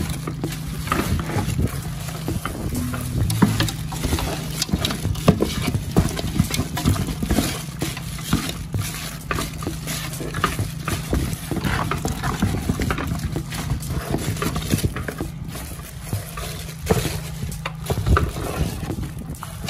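Hands mixing and squishing chopped, marinated duck pieces in a metal bowl: irregular wet squelches and knocks of meat and bone against the bowl, over a steady low hum.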